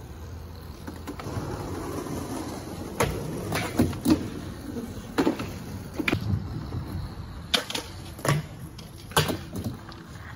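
Skateboard clacking against deck boards: about eight sharp knocks, the first about three seconds in and the rest roughly a second apart, over a low rolling rumble.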